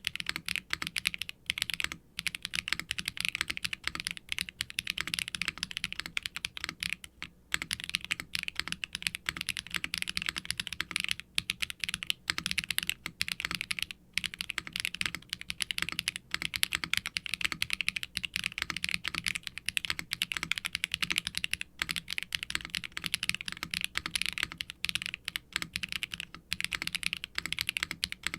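Continuous fast typing on a HIBI June silicone-cased mechanical keyboard: Akko x HMX Cilantro tactile switches with an FR4 plate, tray mount and GMK double-shot ABS keycaps, no added dampening. Dense, quick key strokes with a few brief pauses.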